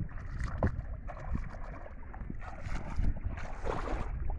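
Legs wading through knee-deep water: irregular swishing and splashing strides, with wind rumbling on the microphone.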